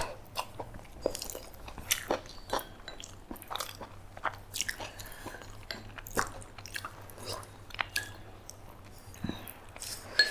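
Close-up eating sounds: a person chewing and biting food, with irregular small crunches and mouth clicks.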